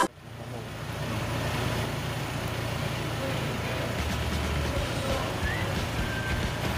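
Steady low machinery hum and drone inside a styrofoam factory, with a faint short chirp or two near the end.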